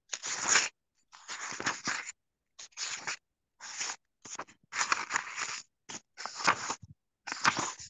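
Short, irregular bursts of rustling and scraping close to the microphone, about eight or nine of them, with dead silence between them.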